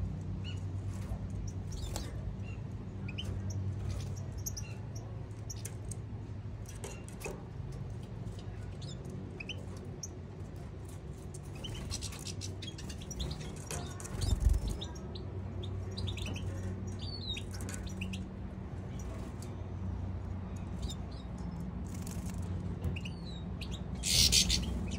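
European goldfinches twittering, with many short, scattered high chirps over a steady low hum. There is a dull thump about halfway through and a brief rush of hissy noise near the end.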